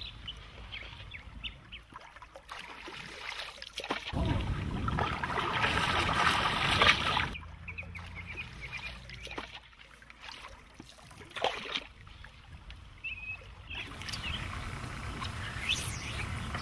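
Outdoor water ambience: water lapping and splashing, much louder for about three seconds near the middle, with a few short bird calls.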